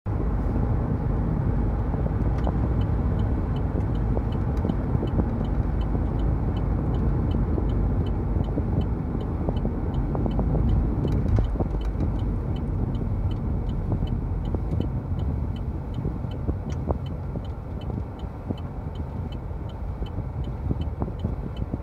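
Car driving on a paved highway, heard from inside the cabin: a steady low rumble of tyres and engine that eases as the car slows about halfway through. A light, regular ticking, about two or three a second, starts a couple of seconds in and keeps going.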